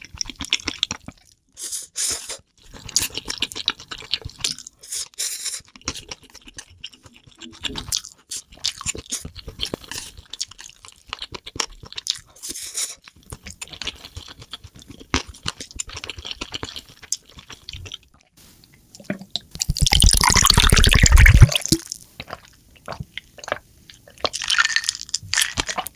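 Close-miked eating sounds: a person chewing and slurping spicy noodles with many small wet clicks and crunches, and one loud, longer burst of noise about twenty seconds in.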